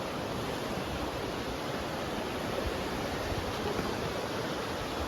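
Steady rush of flowing water, an even hiss with no separate events.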